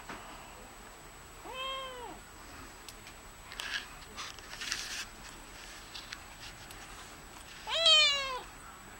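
A kitten meows twice: a shorter call about a second and a half in, and a louder, higher meow near the end that slides down in pitch.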